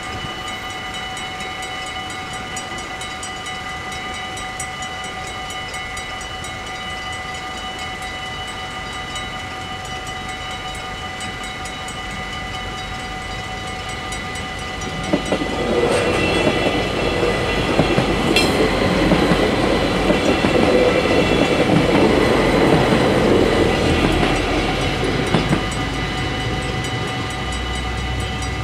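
Level-crossing mechanical bells ringing rapidly and without pause. About halfway through, a Stadler GTW diesel multiple unit passes through the crossing for about ten seconds, its wheels on the rails and its engine louder than the bells, with a single sharp clank in the middle, then fading while the bells keep ringing.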